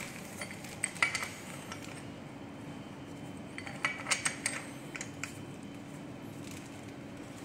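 Light metallic clinks and taps of a steel hand tool against the bicycle wheel's hub and disc-brake rotor as it is worked into place. There is a short cluster about a second in and another near four seconds.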